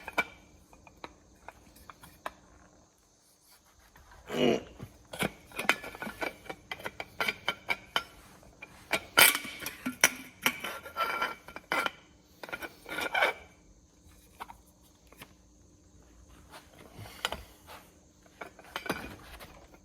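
Irregular metal clinks, knocks and scrapes of a small metal fuel pipe being handled and worked into a steel conduit body, coming in clusters with quieter gaps between.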